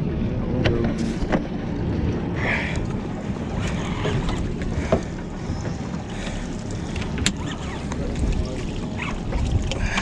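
Steady rush of wind and sea around an offshore fishing boat, with scattered short clicks and knocks.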